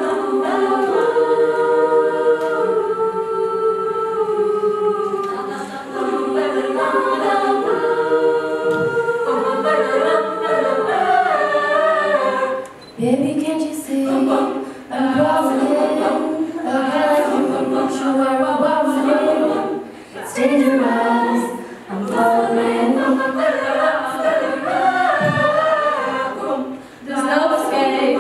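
Female choir singing a cappella in close harmony: long held chords for about the first twelve seconds, then a livelier, rhythmic passage broken by short pauses.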